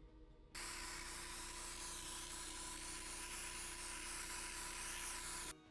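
Airbrush spraying Resolene resist thinned with water onto carved leather: a steady hiss of air and spray that starts about half a second in and stops suddenly near the end.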